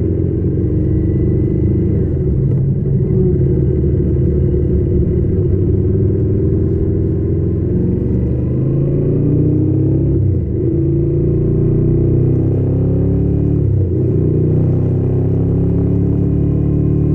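Yamaha XT600 K's air-cooled single-cylinder four-stroke engine running under way. The note climbs steadily and twice drops back briefly before climbing again, about ten and fourteen seconds in.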